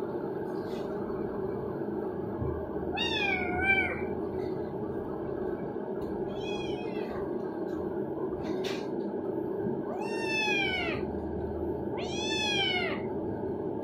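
A kitten meowing four times, a few seconds apart, each call rising then falling in pitch; the last two are the longest and loudest. A steady low hum runs underneath.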